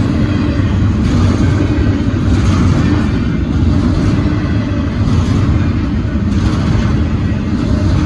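Double-stack intermodal freight train rolling past close by: a loud, steady rumble of the well cars' wheels on the rails.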